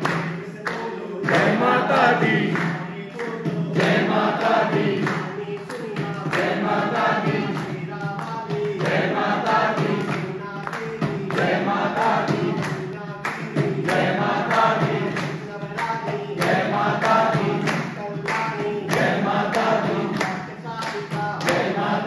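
A group of people singing a song together, with hand claps keeping a steady beat.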